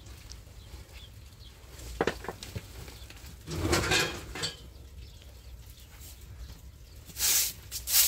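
Household things knocked and shuffled about: a couple of sharp clattering knocks, then a rustle. Near the end a short broom starts sweeping the floor, in brisk swishing strokes about two a second.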